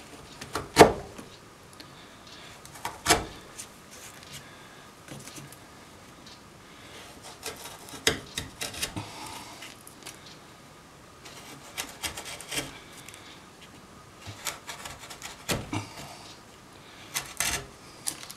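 A wood chisel, pushed and levered by hand, clears the waste between saw kerfs in a pine board. Pieces break away with sharp cracks, four of them loud and many lighter, and the blade scrapes along the wood in between.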